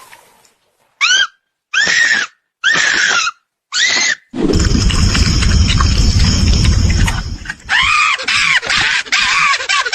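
Four short, high-pitched screams, each rising then falling in pitch, followed about four seconds in by a loud, rough, distorted rumbling noise lasting about three seconds, then another quick run of screams.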